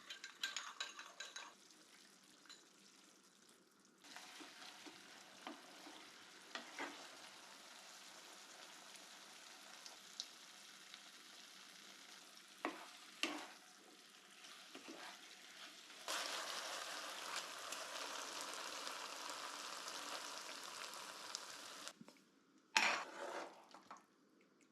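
Food sizzling in a pan while it is stirred, with a few sharp clinks of a utensil against the pan. The sizzle jumps louder about four seconds in and again about sixteen seconds in, then drops away near the end.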